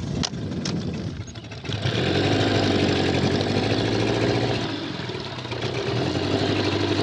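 A boat's outboard motor. After a few knocks at the start, the motor comes up to a steady run about two seconds in, eases off briefly a little past halfway, then picks up again as the boat moves closer.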